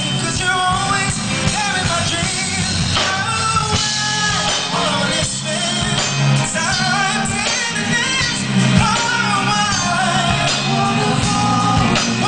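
Live R&B performance: a male vocalist singing into a handheld microphone with sliding, ornamented vocal runs over a full band accompaniment.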